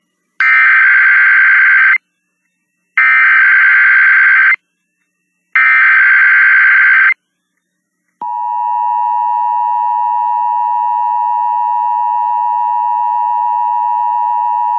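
NOAA Weather Radio Emergency Alert System signal. Three identical bursts of warbling SAME digital header data, each about a second and a half long, are followed about eight seconds in by the steady, loud 1050 Hz weather radio alert tone. It is the start of a tornado watch alert.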